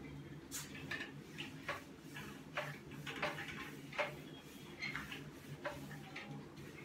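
Whiteboard eraser rubbed across the board in short, quick wiping strokes, about two a second, over a low steady hum.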